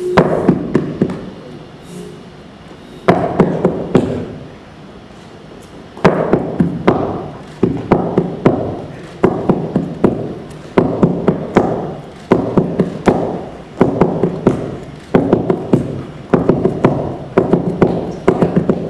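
Rhythmic percussion of sharp taps and knocks in short clusters: a few separate hits at first, then from about six seconds in a steady pulse a little more than once a second.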